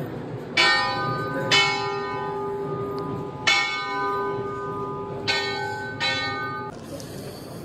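Temple bell rung by hand, struck five times at uneven intervals, each strike ringing on until the next; the ringing stops a little before the end.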